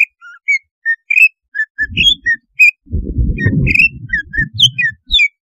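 Greater green leafbird (cucak ijo) giving a rapid series of short, sharp whistled notes and chirps, a lure song used to make other cucak ijo excited and aggressive. A low muffled noise runs under the calls from about two seconds in until near the end.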